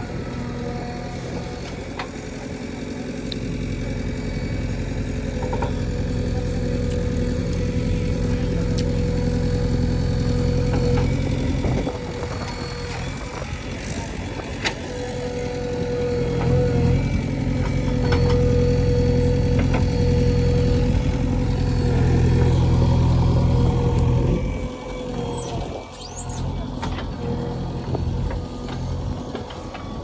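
JCB backhoe loader's diesel engine running under load as the backhoe arm digs, with a steady hydraulic whine. The engine revs up and works hard in two long stretches, easing back about twelve seconds in and again near the end.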